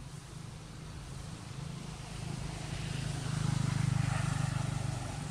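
Engine of a passing motor vehicle: a steady low hum that swells to its loudest around four seconds in, then eases off.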